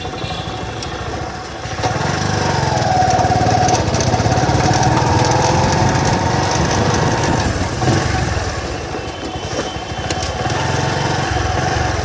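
Motorcycle running with its rear wheel driven, the chain and sprocket making the noise that sets in after 15,000 to 20,000 km on a worn chain sprocket set. The engine picks up about two seconds in and eases back near eight seconds, with a thin whine over the engine while it is up.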